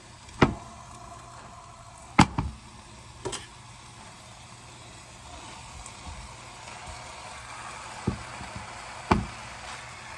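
Ground turkey sizzling faintly in a pot on the stove, the hiss growing a little partway through, with several sharp knocks and clicks as things are handled and set down.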